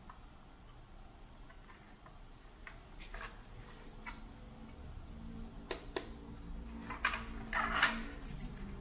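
Handling noise from a small plastic radio alarm clock being turned over in the hands: scattered light clicks and knocks, then louder rubbing and scraping of the plastic case near the end.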